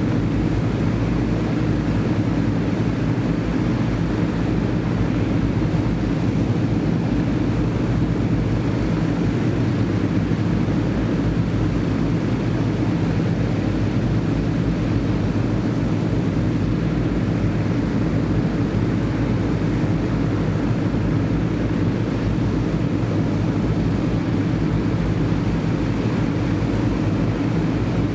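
Avro Shackleton Mk3's Rolls-Royce Griffon V12 piston engines, three of the four running together on the ground with their contra-rotating propellers turning, a steady, even drone that holds at one speed.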